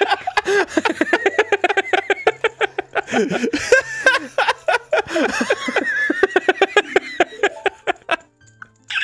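Men laughing hard in long, high, pulsing runs, fading out near the end.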